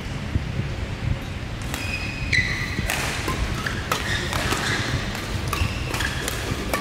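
Badminton rally: sharp cracks of rackets hitting the shuttlecock about once a second, with short squeaks of court shoes between them. A low steady hall rumble runs underneath.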